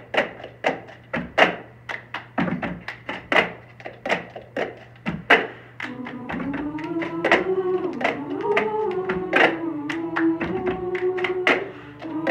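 Red plastic cups tapped, slapped and clapped against a counter in a steady cup-game rhythm, sharp knocks about two to three a second. About six seconds in, a choir comes in over the rhythm, holding sustained chords.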